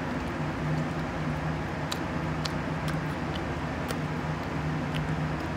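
A steady low hum over a background rumble, with a few faint short clicks.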